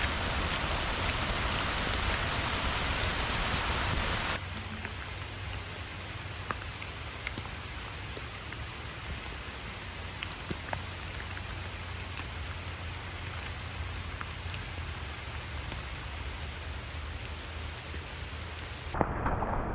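Steady rain falling, with scattered single drops tapping close by. About four seconds in the sound cuts abruptly to a quieter rain.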